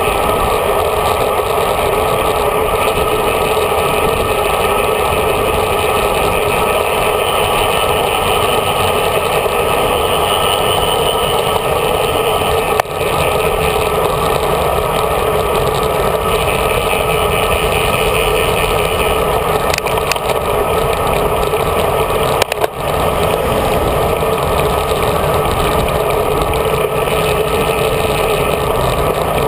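Steady wind rush and road rumble from a road bike riding at speed, heard through a handlebar-mounted GoPro, with two brief dips in the noise about 13 and 22 seconds in.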